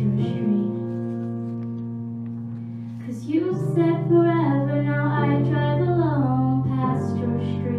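A girl singing solo into a microphone over instrumental accompaniment of long held chords. For the first three seconds or so only the held chord sounds; then she sings a phrase that rises and falls, and the chord changes near the end.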